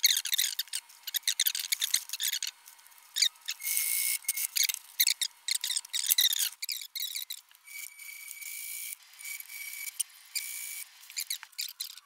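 Fabric rustling and being handled at a sewing machine, with small clicks and snips as threads are trimmed with scissors. Twice a steady hiss with a faint high whine runs for a second or more, about four seconds in and again from about eight to eleven seconds.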